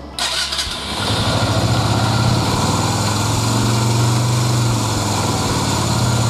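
Yamaha XV125 Virago's small air-cooled V-twin starting up on full choke: a brief spin of the starter, the engine catching about a second in, then a steady idle.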